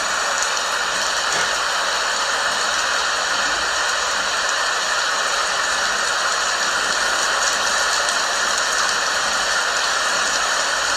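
Heavy rain falling steadily: a dense, even hiss with faint scattered drop ticks and no thunder.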